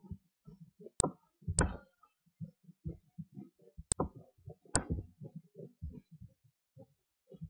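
Computer mouse button clicking four times, in two pairs: sharp clicks about one and one and a half seconds in, then near four and five seconds, over faint scattered low knocks and rustling.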